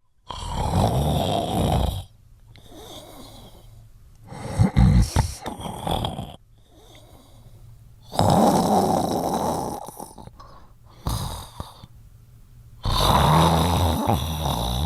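Heavy rasping snoring: three long, loud snores with quieter breaths between them, and a rougher, choppier snore about five seconds in.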